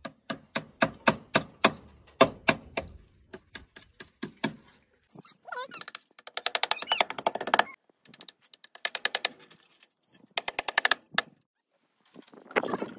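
Hammer tapping small nails into the wooden frame of a cage to hold down wire mesh: sharp strikes about three a second for the first five seconds or so. After that come several short bursts of fast rattling clicks.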